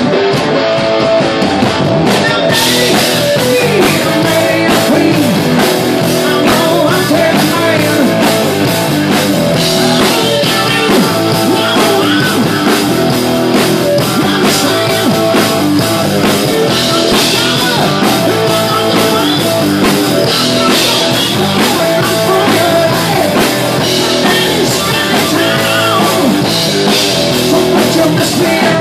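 Live rock band playing with electric guitars, bass guitar and drum kit. A guitar part leads in alone, then the drums and full band come in about two seconds in and play on with a steady beat.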